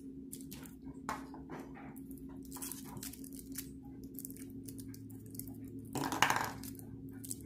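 Small handling sounds of paper and a glue stick on a worktable: light clicks and taps while a paper cartridge tube is glued, with one short, louder rustle or scrape about six seconds in, over a faint steady hum.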